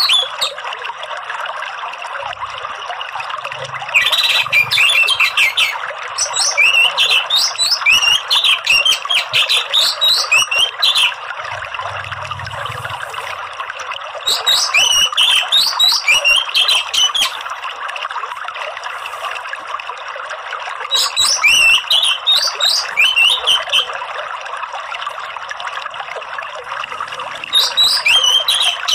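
Orange-headed thrush (anis merah) singing in bursts of rapid, twittering, fast-changing phrases a few seconds long, separated by short pauses. Under it runs a steady trickle of running water.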